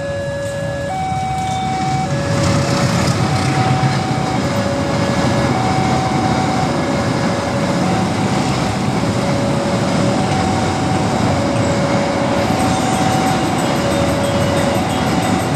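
Level-crossing warning alarm sounding alternating low and high tones, each held about half a second, while a train passes over the crossing. The loud rolling noise of the train comes in about two seconds in and runs on under the alarm.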